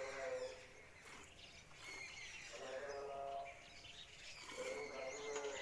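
An animal bleating three times, near the start, at about three seconds and again near the end, with birds chirping.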